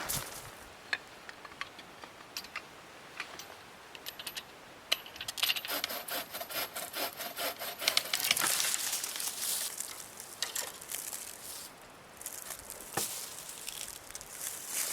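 Wood being cut by hand: scattered clicks and knocks, then a quick run of scraping strokes for a few seconds about a third of the way in, easing off into a few knocks near the end.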